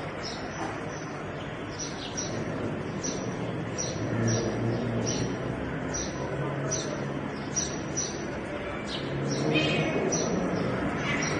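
A small bird chirping over and over: short high chirps that drop in pitch, about two a second, over a low background hum.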